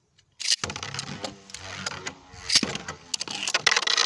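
Beyblade spinning tops ripped from their launchers into a plastic stadium about half a second in, then whirring and clacking against each other and the stadium walls.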